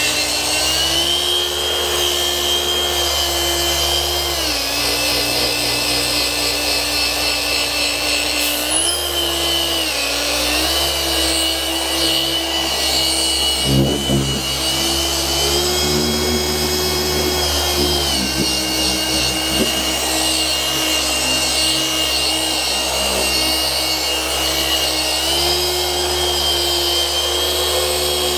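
Dual-action car polisher running continuously, its microfiber pad working compound over freshly sanded paint. It gives a steady whine whose pitch drops and comes back up several times.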